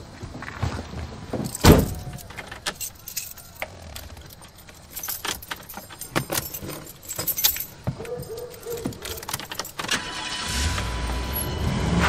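Keys jangling with clicks and rustles inside a van's cab, and one heavy thump about two seconds in. About ten and a half seconds in, the van's engine starts and settles into a steady idle.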